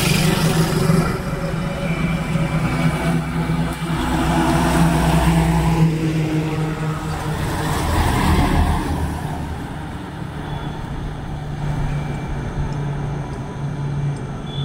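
Loaded diesel goods trucks driving past on a highway one after another, engines running under load with tyre noise swelling as each goes by; the loudest pass comes about eight seconds in as a truck goes by close up.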